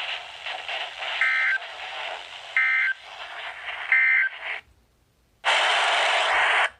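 EAS end-of-message data bursts: three short, identical warbling digital SAME tone bursts about a second and a half apart, over hissy radio reception, marking the end of the alert. After a short silence comes a second or so of steady static hiss.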